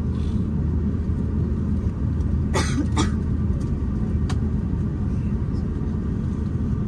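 Steady low cabin rumble inside an Airbus A350-941 on the ground just after landing. Two sharp clicks stand out about two and a half and three seconds in, with a fainter one a second later.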